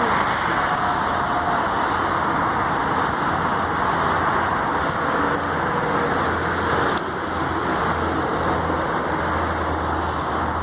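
Steady roar of road traffic, an even rushing noise that holds at one level, with a low hum added in the second half.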